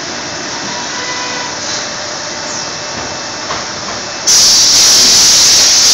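Automated shoe-making machinery with an air-fed robot arm running with a steady noise; about four seconds in, a much louder steady hiss of air starts and holds.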